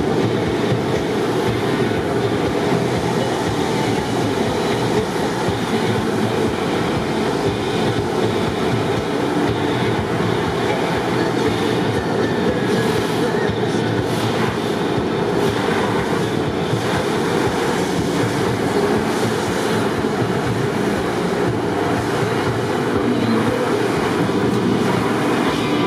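Automatic car wash heard from inside the car: a steady, loud rush of water sprayed over the windshield and body, with a low rumble from the wash equipment.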